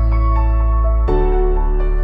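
Background music in a calm, new-age style: sustained chords over a deep bass with a light melody on top, moving to a new chord about a second in.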